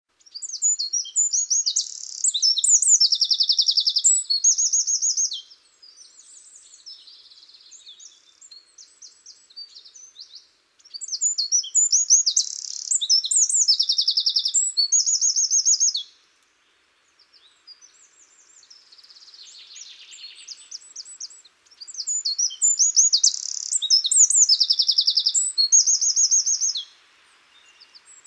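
A songbird singing: three loud, near-identical phrases of fast trills and buzzy notes, about ten seconds apart, with fainter chirps in between.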